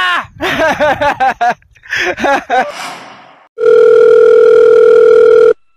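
Voices for the first few seconds, then a telephone ringback tone heard by the caller: one steady, single-pitched buzz of about two seconds starting a little past halfway, stopping abruptly, as an outgoing call rings through.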